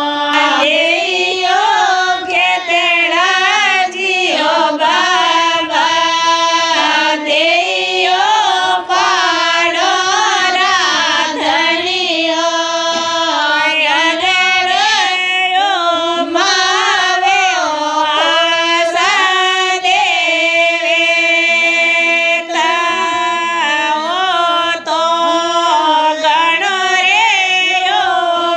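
Female voice singing a traditional Marwari ratijoga devotional song, a melody that bends and wavers.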